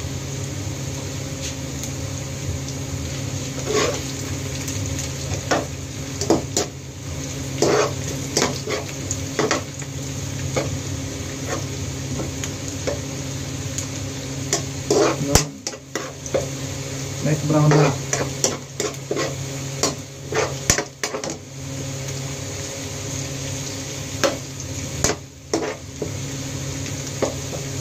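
Metal ladle stirring and scraping in a wok of chopped garlic frying in oil: a steady sizzle with many scattered clinks and scrapes of the ladle against the pan.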